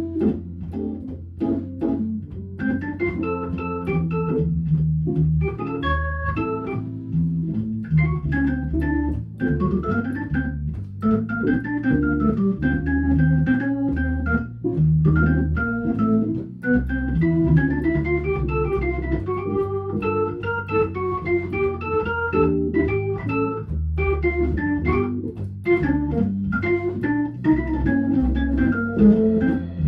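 Hammond organ taking a jazz solo, quick single-note runs that rise and fall over a bass line moving note by note, with electric guitar strumming chords underneath.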